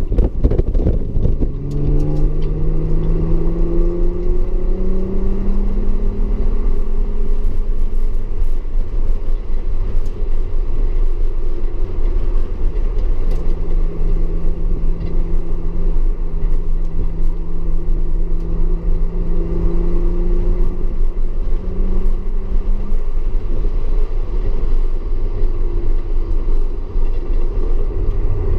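Audi S4 engine pulling hard, its pitch rising over the first several seconds, then running at a steadier pitch with a change about three-quarters of the way in. A heavy low rumble of road and wind noise runs underneath.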